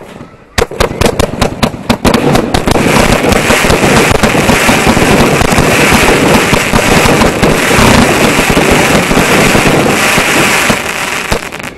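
A rapid-fire fireworks barrage launched from mortars close by. It starts as a quick run of separate launch bangs, then packs into a dense, continuous rattle of bangs and crackling bursts that eases slightly near the end.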